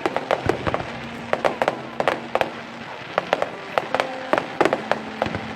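Aerial fireworks exploding in a rapid, uneven string of sharp bangs and crackles, with music playing underneath.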